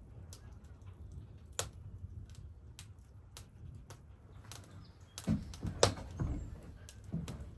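Wood fire crackling in a woodstove: irregular sharp pops over a low steady rumble, with a cluster of louder knocks about five to six seconds in.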